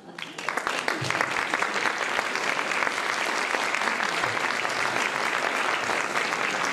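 Audience applauding: the clapping builds up quickly in the first second and then holds steady as a dense patter.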